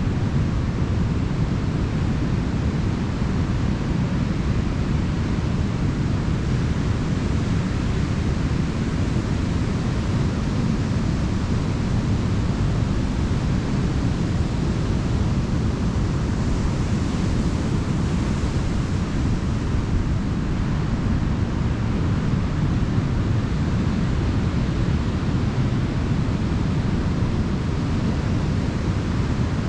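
Ocean surf washing onto a beach: a steady, even rush of waves with a heavy low rumble and no separate crashes standing out.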